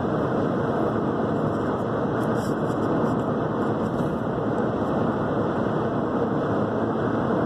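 Steady road and tyre noise inside a car's cabin while driving at highway speed.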